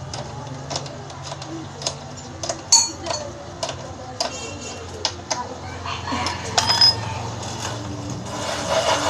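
Metal clicks, knocks and clinks of hand tools against a child's bike as a pedal is fitted to the crank arm. Two short metallic rings stand out, a little under 3 s in and near 7 s, and a rushing noise swells near the end.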